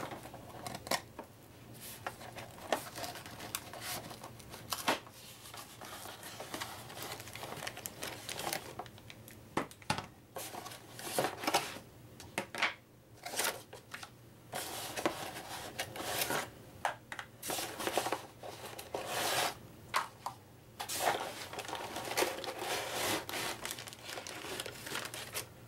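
A cardboard game box being opened by hand, then plastic-bagged game pieces crinkling and rustling as they are lifted out and set down, with irregular knocks of plastic and cardboard on the table.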